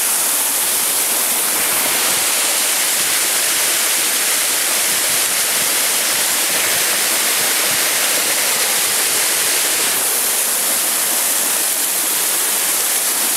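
Small mountain waterfall cascading over rocks into a stream, a steady, even rush of falling and splashing water heard close by.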